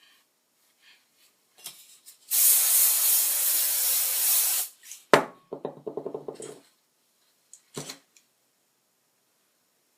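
Aerosol hairspray can spraying in one continuous hiss of about two and a half seconds, followed by a sharp click and a short clatter.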